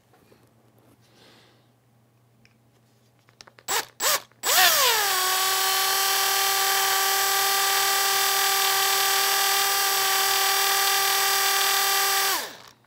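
Cordless drill drilling a small hole in a 3D-printed plastic part. Two short trigger blips, then the motor runs steadily for about eight seconds, its pitch dropping just after it starts, and it winds down near the end.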